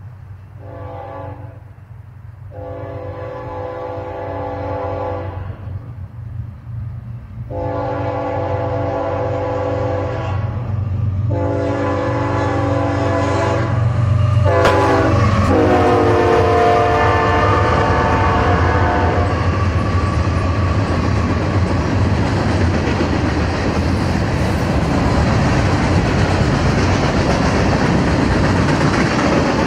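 Union Pacific freight train's locomotive horn sounding five chorded blasts as the train approaches, the last held as the lead locomotives pass and dropping in pitch, over the growing rumble of the diesel engines. After that comes the steady clatter of the freight cars rolling by.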